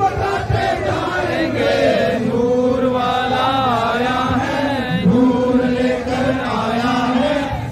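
Men's voices chanting a devotional Islamic chant, the melody rising and falling in long drawn-out lines without a break.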